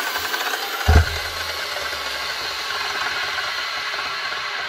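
Black & Decker HD1000 circular saw's motor running steadily with a rattle, with one heavy thump about a second in.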